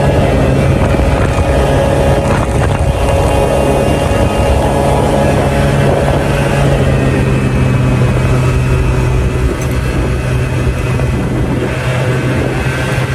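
Scooter riding along at around 55 km/h: a steady motor hum under rushing air, easing off a little in the second half as it slows.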